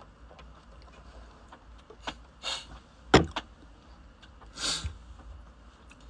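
Handling noises from eating at a table: a sharp tap about three seconds in, with a lighter tick before it and two short rustles around it.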